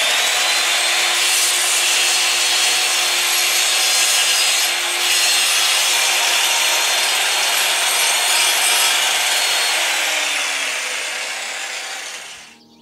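Angle grinder with an abrasive cut-off wheel cutting through a metal rod: a loud, steady, high-pitched grinding that starts abruptly. Near the end the pitch falls and the sound fades as the motor winds down.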